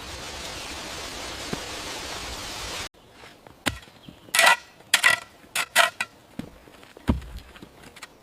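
A steady hissing noise that cuts off abruptly, followed by a run of sharp, separate strikes on wood during woodworking, some with a brief ring, and a couple of duller thuds near the end.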